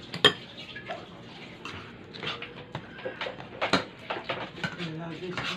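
Close-up eating and food-handling sounds: a string of short wet smacks and clicks, with one sharp click just after the start.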